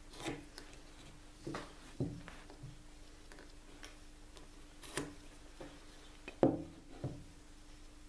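A steel square, a pencil and a small wooden piece being handled on a wooden workbench while marking out: a handful of light taps and knocks, scattered irregularly, the loudest about six and a half seconds in. A faint steady hum runs underneath.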